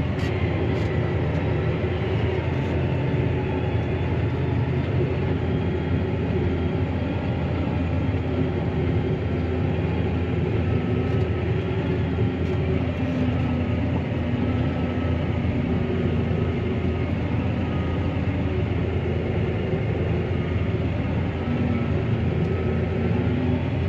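Claas Arion 650 tractor's six-cylinder diesel engine running steadily under load, heard from inside the cab as it rolls the silage clamp, its pitch wavering slightly.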